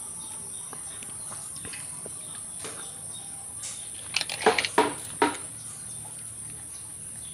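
Steady high insect trill, with a short cluster of sharp clacks about four seconds in as a tape measure is brought against the wooden board and its blade pulled out.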